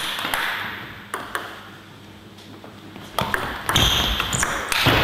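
Table tennis ball clicking off the rackets and the table during a rally, one sharp tick every second or so. Louder noise builds over the last second or so.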